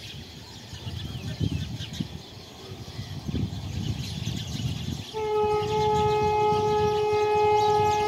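A train horn sounds one long, steady blast starting about five seconds in, from the Vande Bharat Express as it approaches. Before the blast there is a low, uneven rumble.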